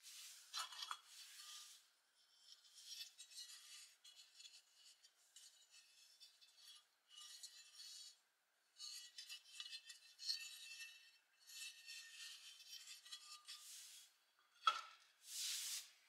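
Faint handling noise of a rusty metal toy truck body being turned over in the hands: scraping and rubbing with small metallic clinks. A sharp knock comes near the end as the metal body is set down on the workbench.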